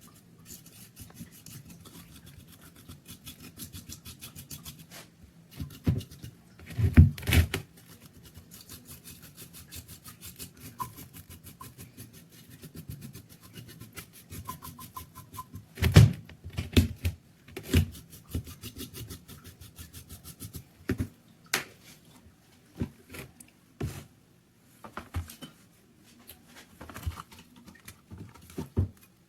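Hand tools working on metal parts: long runs of rapid scraping or brushing strokes, broken by several loud knocks and clunks.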